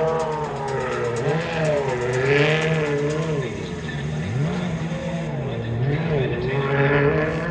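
A car drifting: its engine revs rise and fall over and over while its tyres squeal.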